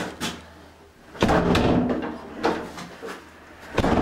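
Several knocks and clunks with rustling between them, like a door or cupboard being handled at close range; the loudest rustling comes about a second in.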